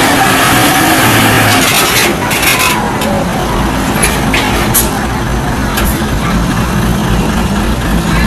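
Diesel engine of a loaded heavy tandem-axle truck running under load as it crawls through deep mud. A deeper low thrum sets in about three and a half seconds in. A few short hisses come in the middle.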